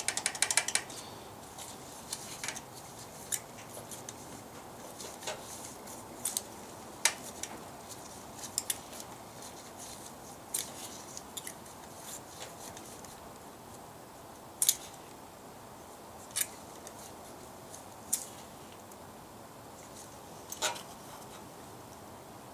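Sharp metallic clicks and taps of hand tools against the valve rocker arms and adjusting screws of an IH 354 tractor's four-cylinder engine, which is not running, while the valve clearances are being checked. There is a quick cluster of clicks at the start, then single clicks every second or two.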